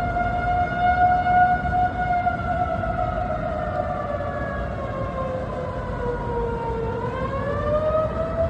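Outdoor tornado warning siren wailing steadily, its pitch sinking slowly over several seconds and then rising again near the end, over a low background rumble.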